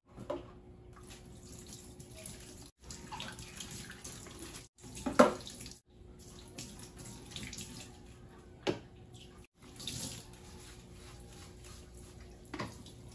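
Tap water running into a stainless steel kitchen sink during washing up, with a few sharp knocks of things set against the metal, the loudest about five seconds in.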